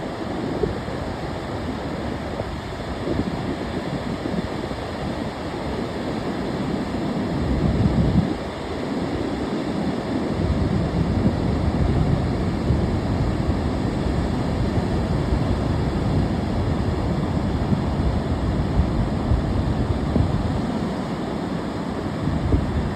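Ocean surf washing ashore in a continuous rushing noise that swells and eases, with wind rumbling on the microphone.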